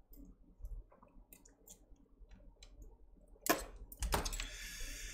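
Small clicks and taps of repair tools handled at a bench as an iPhone SE is taken apart. A sharper click comes about three and a half seconds in, followed by about a second and a half of high hissing noise.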